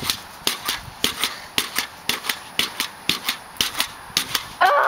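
Pogo stick bouncing steadily, a pair of sharp clanks with each landing, two to three bounces a second. Near the end a girl's voice cries out briefly.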